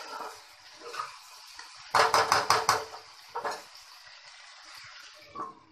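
Spatula stirring in a kadai of chicken curry. About two seconds in it knocks against the pan several times in quick succession, and there are single clinks after that.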